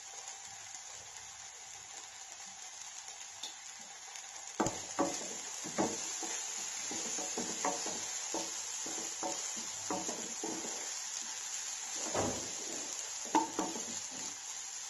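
Onions and ginger-garlic paste sizzling in hot oil in a non-stick kadai. About four and a half seconds in, a wooden spatula starts stirring and scraping the pan in repeated strokes, and the sizzle grows louder.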